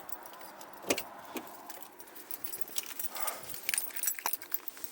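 Keys jingling with scattered sharp clicks and knocks of handling.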